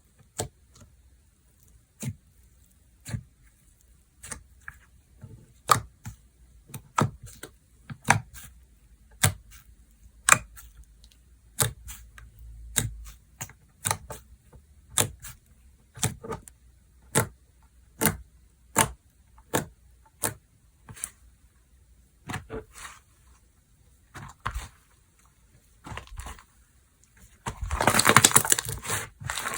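Slime being pressed and stretched by hand, giving sharp popping clicks about once a second. Near the end it breaks into a dense run of crackling for about two seconds.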